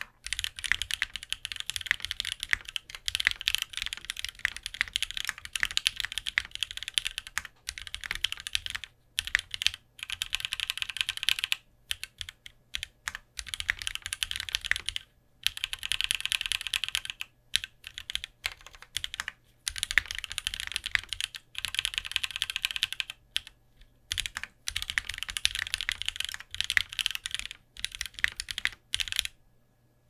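Fast typing on a custom TKL mechanical keyboard with Krytox 205g0-lubed Alpaca V2 linear switches on a 1.5 mm POM plate, in runs of rapid key presses broken by short pauses. The bottom-out is soft and lower pitched, from the flexing POM plate. The typing stops about a second before the end.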